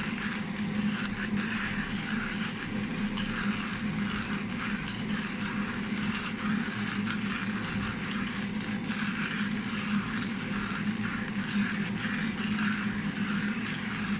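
XEOLEO 45 mm manual burr coffee grinder grinding a dose of coffee beans by hand, a steady grinding noise that goes on without a break.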